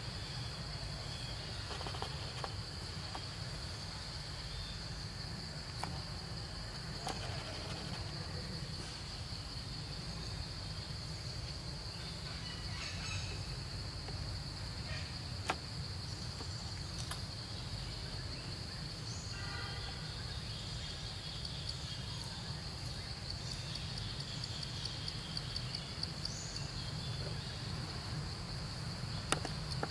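Outdoor ambience dominated by insects keeping up a steady high-pitched buzz, over a low rumble, with a few faint clicks and taps scattered through.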